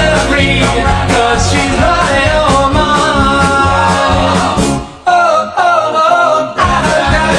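Upbeat rock-and-roll goal song with singing over a full band. Just before five seconds in, the drums and bass cut out and the singing carries on alone, then the full band comes back in about a second and a half later.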